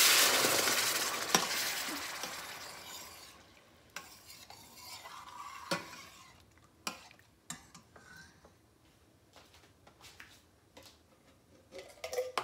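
Coconut cream poured into a hot pan of sautéed onion and garlic sizzles loudly, the sizzle fading away over about three seconds. A few sharp metal clinks of a spoon against the stainless steel pan follow as the cream is stirred.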